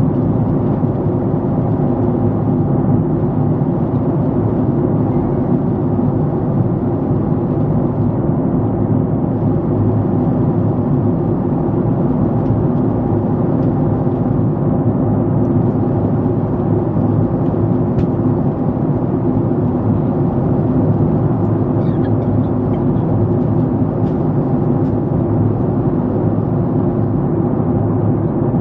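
Steady drone of a jet airliner's passenger cabin in cruise: engine and airflow noise heard from inside the cabin, even and unbroken.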